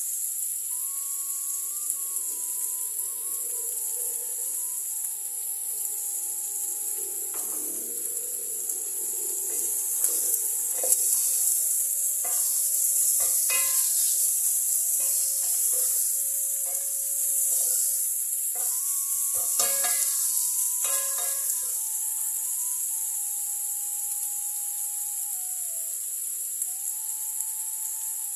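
Chicken mince with tomatoes and green onions frying in a pot, a steady high sizzle, with a spatula stirring and knocking against the pot in clusters about ten seconds in and again around twenty seconds.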